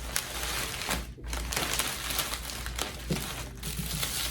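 Packaging paper and wrapping crinkling and rustling as it is handled and pulled away from a newly unboxed bag.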